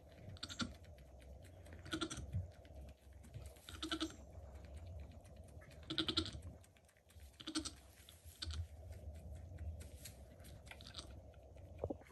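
Nigerian Dwarf doe licking her newborn kid clean: wet licking and rustling of the shavings-and-straw bedding, with short, soft, low goat bleats about every two seconds.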